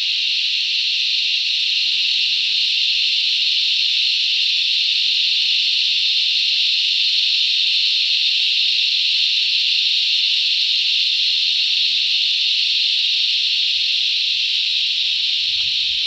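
Chorus of cicadas shrilling continuously, a deafening, steady high-pitched buzz.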